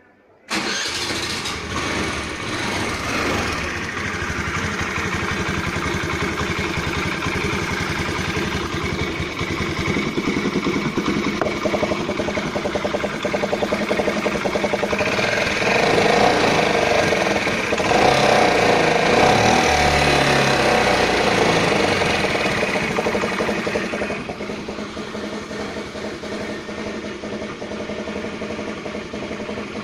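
Hero Honda Pleasure scooter's small single-cylinder engine starting about half a second in and then running steadily. It runs louder with shifting pitch for several seconds in the middle, then settles back to a quieter idle near the end.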